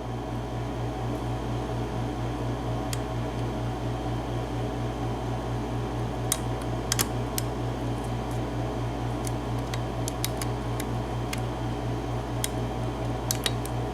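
Scattered light clicks and ticks of a lock pick working the pin stacks of a 5-pin AZBE euro cylinder lock under top-of-keyway tension, coming more often in the second half. A steady fan hum runs underneath.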